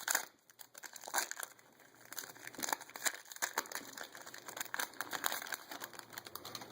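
Foil trading-card pack wrapper crinkling and crackling as it is handled, in irregular rustles.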